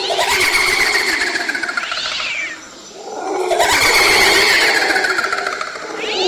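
A harsh, animal-like horror sound effect: two long, rasping cries, each falling in pitch over about two seconds, the second starting around the middle, with short rising-and-falling squeals between them and at the end.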